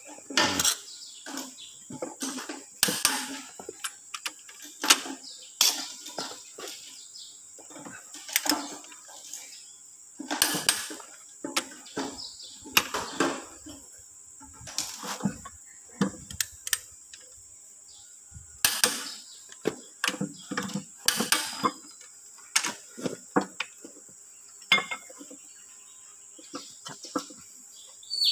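Ratchet wrench clicking in irregular bursts, with sharp metal-on-metal clinks, as the main bearing cap bolts on a Perkins 152 diesel engine block are tightened down over the crankshaft.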